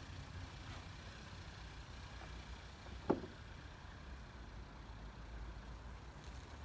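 Car engine running at low speed while the car rolls back down off a pair of drive-on ramps, a steady low rumble. A brief sharp sound cuts through it about three seconds in.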